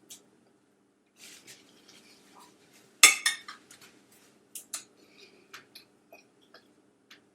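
Fork and dishes clinking while eating spaghetti: one loud clatter about three seconds in, then scattered lighter clicks and taps, over a faint steady low hum.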